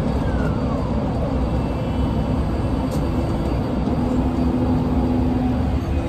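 Steady low rumble of an indoor shooting range's ventilation, with a faint low hum joining about halfway through. No shots are fired.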